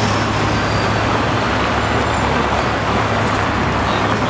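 Steady city street traffic noise, with cars driving past close by.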